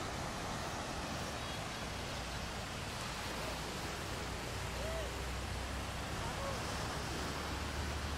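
Steady wash of ocean surf on a sandy beach, with a low rumble of wind underneath.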